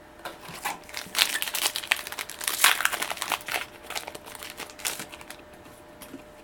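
Foil Yu-Gi-Oh booster pack wrapper crinkling as it is handled and opened, loudest in the middle and fading out about five seconds in.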